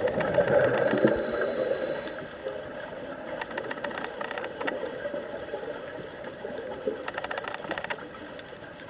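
Scuba regulator breathing heard underwater: a loud burble of exhaled bubbles in the first two seconds, with a short hiss, then quieter bubbly water noise broken by clusters of rapid clicks.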